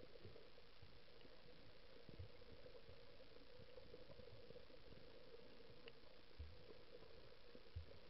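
Near silence: faint muffled underwater ambience with a steady low hum and a few soft thumps, heard through a camera filming underwater.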